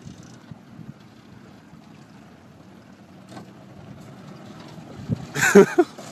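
A man falling backward off a small boat's bow into shallow water: a sudden loud splash with a shout about five and a half seconds in, over low, steady background noise.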